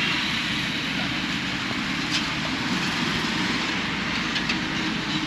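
Steady low roar with a hiss from a street food stall's gas-fired flat griddle, with road traffic running behind it. A few faint clicks of steel utensils.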